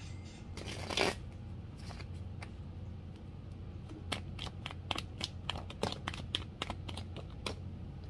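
A deck of tarot cards being shuffled by hand: a brushing rush of cards about a second in, then a quick run of crisp card clicks and slaps in the second half.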